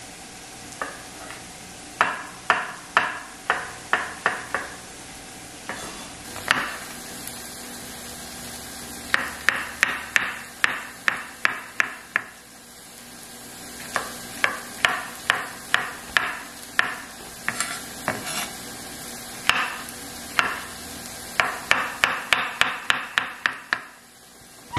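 Chef's knife chopping brown mushrooms on a wooden cutting board: runs of quick knocks of the blade on the board, about three a second, in several bursts with short pauses between.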